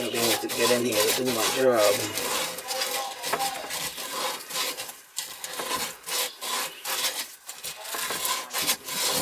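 Metal scraping and rubbing as a pipe bracket behind copper water lines is worked loose by hand: a wavering squeak for the first two seconds or so, then repeated uneven scraping strokes.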